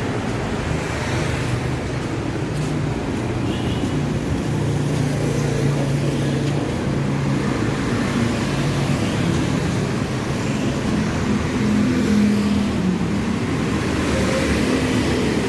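Street traffic: motor vehicles running and passing, a steady road noise with engine hum, one vehicle louder about twelve seconds in.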